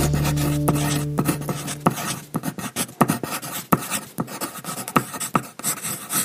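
Pen-on-paper writing sound: a run of quick, irregular scratchy strokes as letters are hand-written. The last chord of the intro music fades out under them over the first two seconds.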